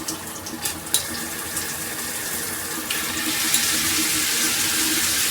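Water spraying steadily from a handheld shower head, with a few sharp clicks in the first second as the spray-setting face is turned. About three seconds in the spray switches to a harder setting and the hiss grows louder and brighter.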